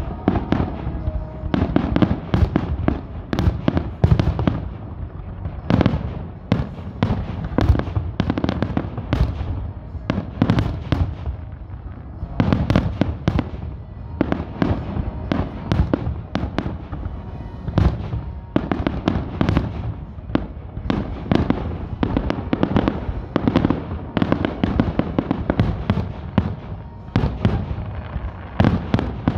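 Aerial fireworks display: a rapid, unbroken barrage of shells bursting, several sharp bangs a second with crackle between them.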